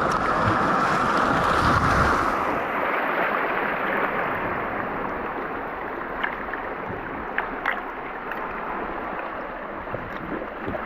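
Sea water surging and sloshing around the camera. About two and a half seconds in the sound turns duller and muffled, with a few faint clicks later on.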